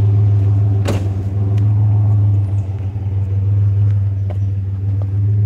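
Truck engine idling steadily with a low, even hum, heard from inside the cab. A single sharp click about a second in.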